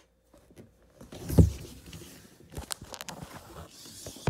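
Handling noise right at a phone's microphone as toys and the phone are moved: a soft thump about a second and a half in, then scattered clicks and light rustling.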